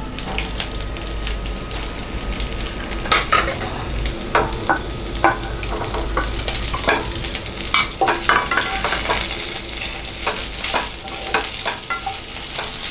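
A spatula stirring steamed rice balls (uppu kozhukattai) into tempering in a pan, with repeated scrapes and knocks against the pan over a light sizzle from the pan's residual heat.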